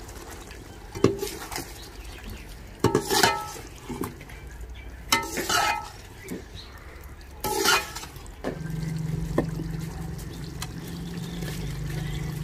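A metal spoon scraping and knocking against a cooking pot in several short strokes as the chicken and biryani masala are stirred. About eight and a half seconds in, a steady low hum starts.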